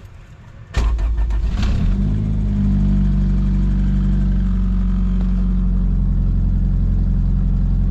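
Car engine cranked and started from inside the cabin, catching about a second in and settling into a steady idle. The owner says its valves are ticking and that it needs a valve adjustment.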